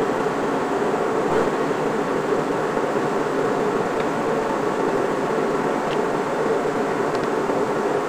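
Metal lathe running steadily with its chuck spinning, a continuous machine hum with a few faint light ticks about halfway through and later.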